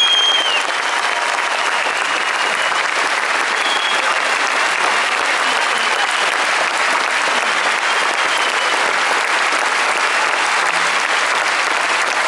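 Large concert audience applauding steadily at the close of an orchestral piece.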